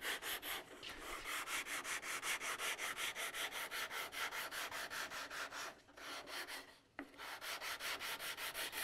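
Sandpaper on a narrow MDF sanding block rubbed back and forth along the back of a wooden guitar neck in quick, even strokes of about four a second, with two short breaks about six and seven seconds in. It is the flat-sanding of the neck's back, done to keep it perfectly flat.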